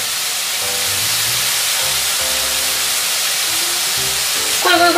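Frying pan sizzling steadily as pork and kimchi fry over a turned-up gas flame, with background music underneath.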